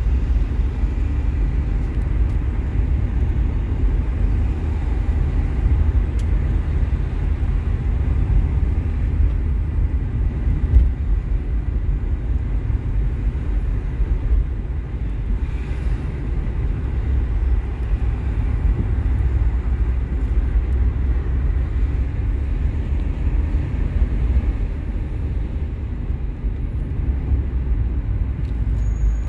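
Steady low rumble of a car driving at highway speed, heard inside the cabin: tyre and engine noise.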